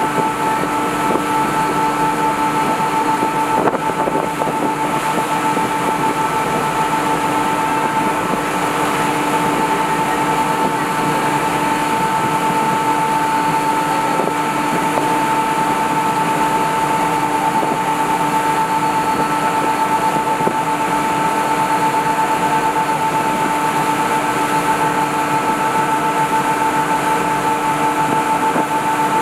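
Kvaerner Fjellstrand Foilcat 35M hydrofoil ferry's gas turbines running at speed: a steady high whine with fainter steady tones below it. Under it is a constant rush of wind and water.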